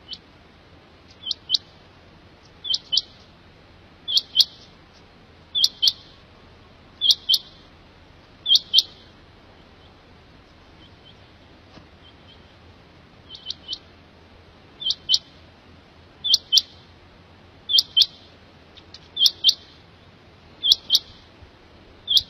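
Quail calling: a quick, sharp two- or three-note phrase repeated about every one and a half seconds, pausing for a few seconds midway before starting again.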